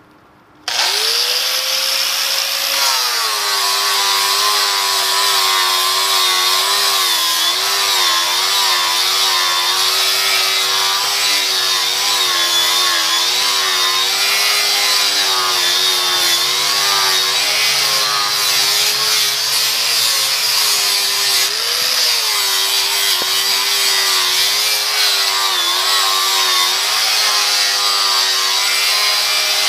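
Angle grinder fitted with a Norton Rapid Strip wheel starting up about a second in, then stripping rust from the outer edge of a cast iron lathe faceplate. The motor's whine climbs as it spins up, then drops and wavers as the wheel is pressed into the metal.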